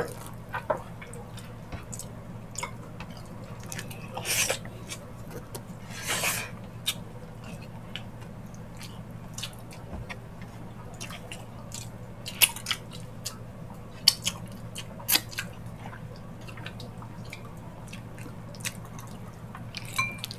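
Close-miked eating of gelatinous ox-feet balbacua by hand: scattered wet clicks and smacks from chewing and from fingers working the saucy meat. Two longer wet sounds about four and six seconds in. A steady low hum runs underneath.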